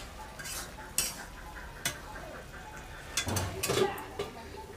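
Metal spatula scraping and clinking against an aluminium kadai as mushroom curry is stirred, with a few sharp clicks, then a louder clatter of metal cookware about three seconds in.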